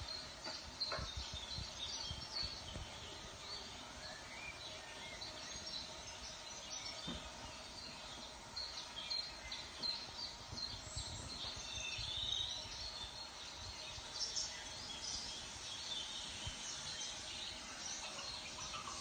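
Faint birds chirping, many short calls over a low background rumble, with a few light clicks in the first second.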